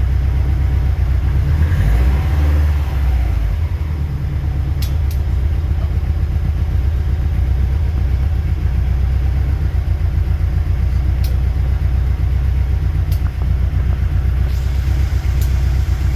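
2015 Subaru WRX STI's turbocharged flat-four running steadily at idle, with a few sharp, irregularly spaced ticks from the driver's side rear of the car. The ticks are an unidentified weird noise whose source the owner is trying to find.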